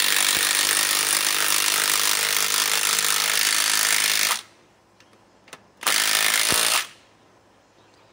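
Milwaukee M18 Fuel 2962 mid-torque impact wrench hammering a 6-inch lag screw into a wooden log, one long run that stops about four seconds in, then a second burst of about a second.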